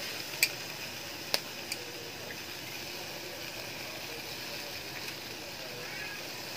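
Pork belly and chicken sizzling on a wire grill over hot charcoal, with three sharp clicks of metal tongs against the grill rack in the first two seconds.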